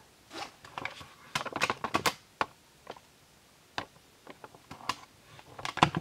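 Handling noise close to the microphone: a run of irregular clicks and taps. They bunch together about a second and a half in and again near the end, where they are loudest.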